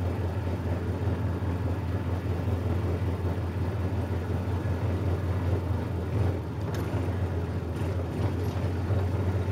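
Small riding garden tractor's engine running steadily at a constant low hum as the tractor drives along.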